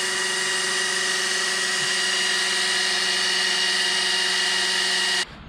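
An electric drill spins a drill pump that forces oil into an LS engine's oil passages, priming the engine before its first start. The motor runs at a steady whine, then cuts off abruptly about five seconds in.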